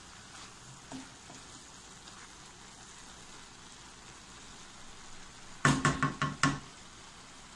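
Faint sizzling and soft stirring of shredded cabbage and carrot in a wok. Near the end, a quick run of about five loud knocks, the wooden spatula striking the wok's edge.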